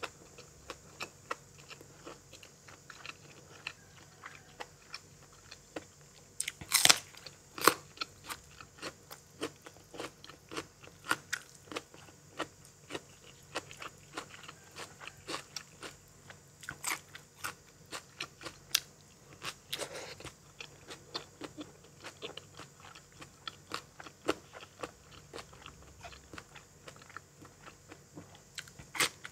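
Close-up chewing of crisp raw vegetables: a steady run of crunchy bites and chews, with a few louder crunches about seven seconds in.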